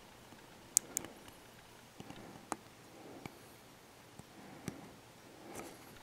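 Hobby knife blade cutting and scraping a small plastic battery cap: a handful of faint, sharp clicks and nicks spaced irregularly, the loudest just under a second in.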